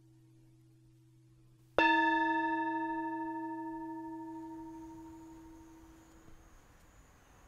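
A bowl bell struck once, a little under two seconds in, ringing out in a long, slowly fading tone that lasts several seconds.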